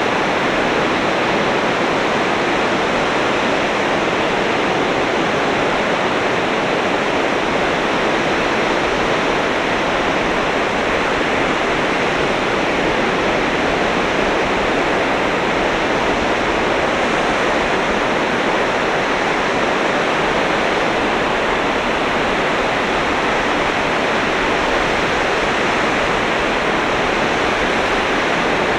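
Sea waves breaking along the shore: a steady, even rush of surf with no single breaker standing out.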